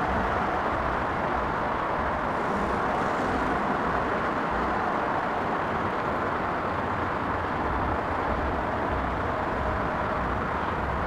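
Steady, even rumble and hiss of airport and road-traffic noise, with no single aircraft passing or changing in pitch.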